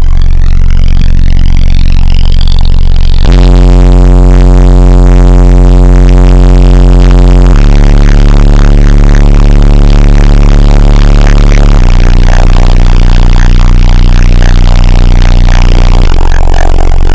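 A single 12-inch car subwoofer playing very loud steady bass test tones. The pitch steps to a new held note about every four seconds, four times in all.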